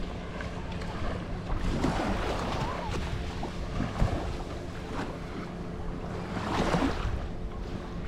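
Gentle surf washing on a sandy beach, with wind buffeting the microphone and a faint steady hum underneath. One wash comes in louder near the end.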